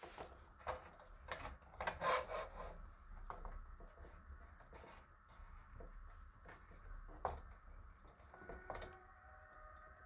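Faint rubbing and scraping with light knocks, busiest in the first three seconds: a stretched canvas being shifted and resettled on a wooden easel.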